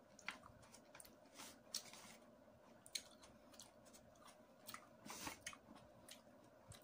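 Faint sounds of eating by hand from an aluminium foil tray: scattered soft clicks and smacks of chewing, and fingers scraping food from the foil, with a slightly longer rustle about five seconds in.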